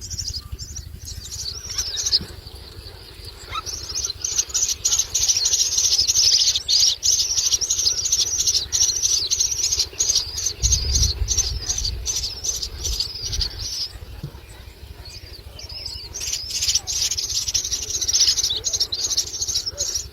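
Myna chicks calling in rapid, high-pitched raspy chatter in long stretches with short lulls, the begging calls of nestlings being fed. A low rumble comes in about halfway through.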